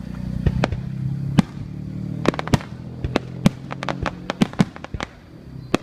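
Fireworks going off: a string of about ten sharp bangs and cracks at irregular intervals. Under them runs a low steady hum that fades out near the end.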